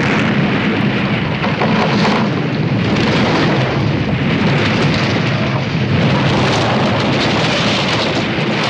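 Explosive charges going off and a wooden roller coaster collapsing: a loud, continuous crashing noise with no single impact standing out.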